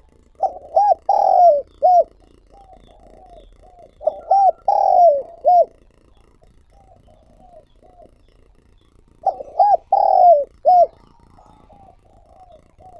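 Spotted dove cooing: three loud phrases about four seconds apart, each of a few short notes around one long, drawn-out coo, with softer short coos in between.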